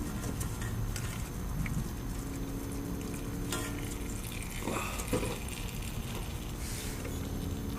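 Old engine oil pouring and trickling out of the drain hole of an Onan MicroLite 2.8 generator, with a steady low rumble underneath.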